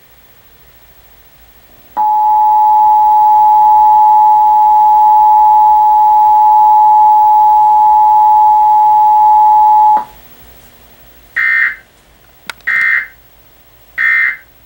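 Emergency Alert System attention signal, a steady two-tone alarm held for about eight seconds and then cut off. About a second later come three short bursts of digital data squawks, the EAS end-of-message code.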